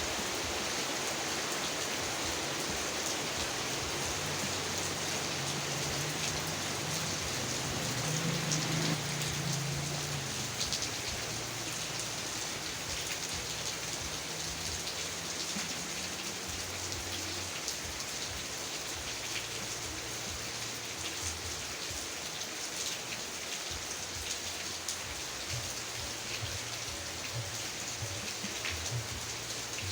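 Heavy rain falling steadily, a dense hiss with individual drops ticking through it. A low rumble swells briefly about eight seconds in.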